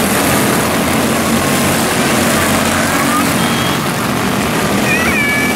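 A field of 160 Light quarter midget race cars running laps together, their small engines making a steady, continuous drone. A few short, high-pitched squeals come near the end.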